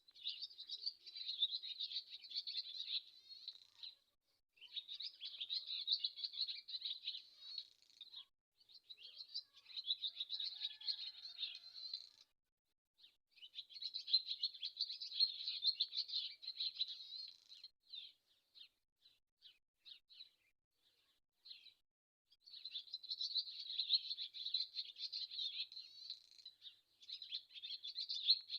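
Swallow singing: bursts of fast, high twittering a few seconds long with short gaps between them, and a run of separate short notes about midway.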